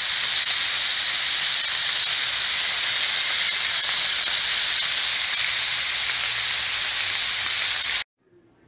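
Strips of bacon sizzling in their grease on a flat-top griddle: a loud, steady hiss that cuts off suddenly near the end.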